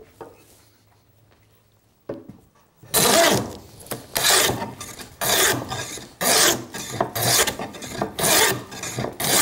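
Lie-Nielsen No. 40½ scrub plane taking heavy cuts along the edge of a board, dimensioning it in width down to a scribed line. After a light knock about two seconds in, about seven rasping strokes follow from about three seconds in, roughly one a second.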